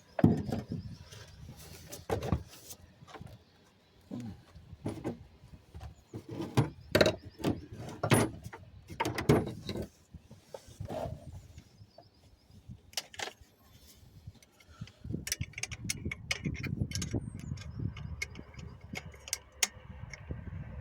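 Irregular knocks, clicks and clatter of tools and metal parts being handled, growing busier with a low rumbling rustle in the last few seconds.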